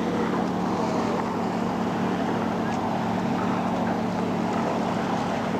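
A boat's engine running at a steady drone, heard from on board, with water and wind noise.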